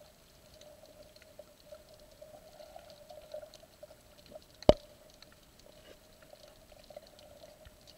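Underwater sound picked up by a camera in its housing: a faint, steady, wavering watery hum with scattered small clicks, and one sharp click a little past halfway.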